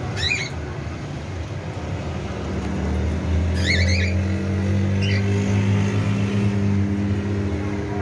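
Three short bouts of warbling chirps from small caged parrots: near the start, a louder one in the middle, and a faint one about five seconds in. Under them runs a steady low engine-like hum that swells about two and a half seconds in and is the loudest sound.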